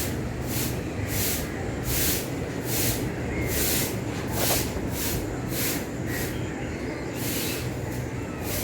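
A broom sweeping the ground in a garden, with rhythmic swishing strokes about one or two a second over a steady low rumble. A few faint bird chirps are heard between the strokes.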